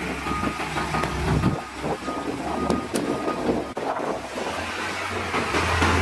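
Diesel engines of heavy earthmoving machinery running, with a backup alarm beeping repeatedly in the first half. The engine rumble grows louder near the end.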